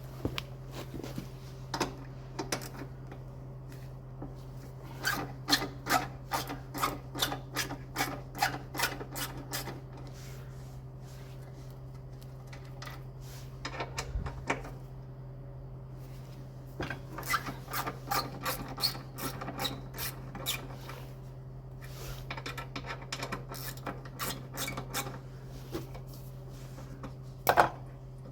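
Socket ratchet wrench clicking in runs of rapid strokes as bolts are worked loose or done up, with a sharper knock near the end. A steady low hum runs underneath.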